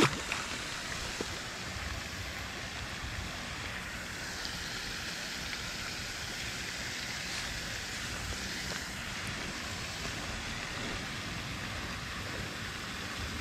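Steady wind and lapping water at a lake bank, an even rushing noise, with a short knock right at the start.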